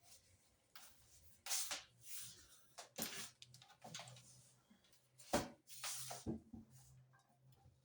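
Kitchen handling noises during cooking preparation: scattered knocks and clatters with brief rustling, two sharper knocks about three and five and a half seconds in, over a low steady hum.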